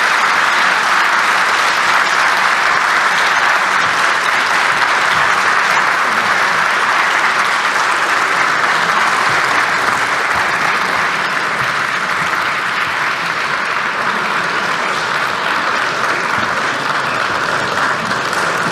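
Sustained applause from a large hall audience of lawmakers, steady and dense, easing slightly in loudness about halfway through.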